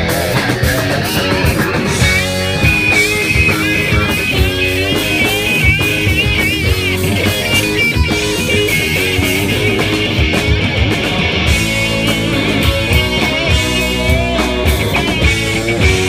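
Rock band playing an instrumental passage: a wavering, bending lead guitar line over bass and drums.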